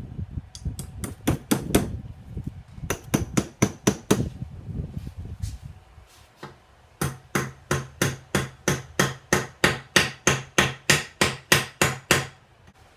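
Hammer driving a wedge into the top of a wooden axe handle to lock the axe head on. A few scattered blows come first, then a steady run of about three blows a second starting about seven seconds in and stopping just before the end.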